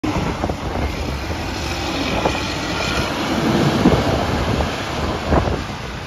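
Champion motor grader at work clearing snow: its diesel engine running steadily under load, with several knocks and scrapes from the plow and blade on the snowy road.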